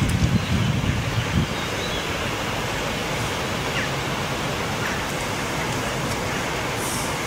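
Wind blowing steadily, with gusts buffeting the microphone for about the first second and a half, then an even rushing hiss.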